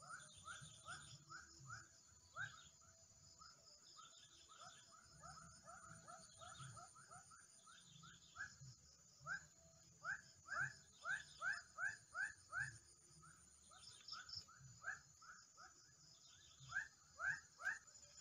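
Faint runs of short, rising chirping animal calls, several a second, loudest from about ten seconds in, over a steady high-pitched buzz.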